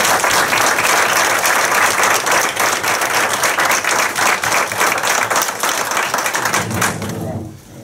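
A group of people applauding: dense, steady hand clapping that dies away near the end.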